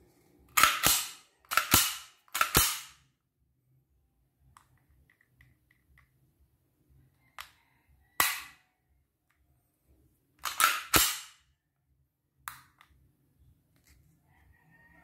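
The action of a WE G34 Gen 4 gas blowback airsoft pistol being worked by hand, giving sharp metallic clacks. There are three in the first three seconds, one about eight seconds in, a quick cluster near eleven seconds and a lighter one after that.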